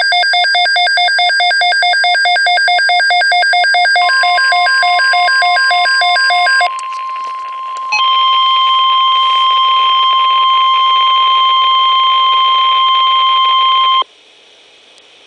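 Weather radio alert: a receiver's rapid electronic alarm beeping, overlapped from about four seconds in by the steady NOAA Weather Radio 1050 Hz warning alarm tone. The tone holds for about ten seconds, joined by a second, higher steady tone about eight seconds in. It then cuts off sharply, leaving faint radio hiss.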